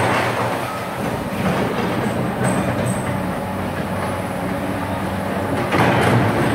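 Hydraulic excavator's diesel engine running hard under load with a steady low hum, getting louder near the end.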